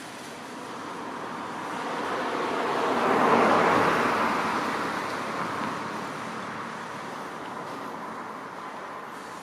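A road vehicle driving past: its noise swells over a couple of seconds, is loudest about three and a half seconds in, then fades away over steady background traffic noise.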